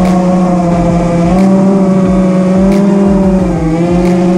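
FPV quadcopter's electric motors whining steadily, the pitch drifting slightly up and down as the throttle changes.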